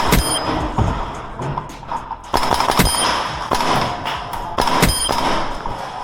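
HPA airsoft guns firing: several sharp shots at irregular intervals, a few followed by a brief high ring.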